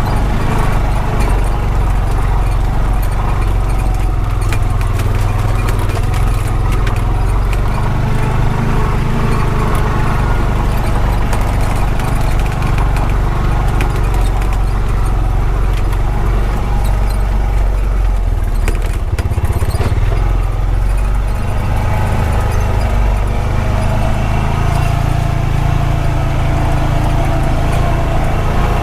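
Honda Pioneer 520 side-by-side's engine running steadily while driving over rough ground, with many small clicks and knocks of the machine rattling over bumps. The engine eases off about two-thirds of the way through, then picks up again.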